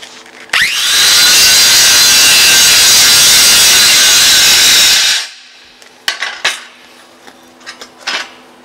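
Angle grinder with a hard grinding disc spinning up with a rising whine about half a second in, then grinding mill scale off the edge of a hot-rolled steel plate for about four and a half seconds before it cuts off. A few clanks of metal follow as the grinder is set down.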